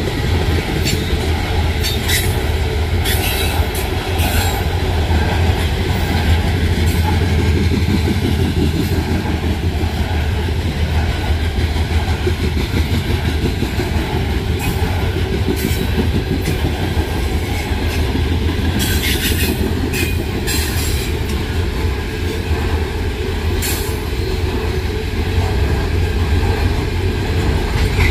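Coal hopper cars of a freight train rolling steadily past: a continuous low rumble of steel wheels on rail, with scattered short high-pitched wheel squeals and clicks.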